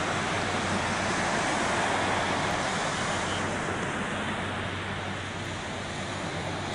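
Steady rushing of surf washing onto a sandy beach, easing a little about halfway through.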